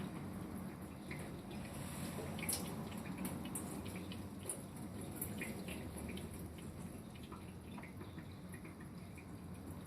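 Water tap running a thin stream into a sink, with irregular small drips and splashes over it.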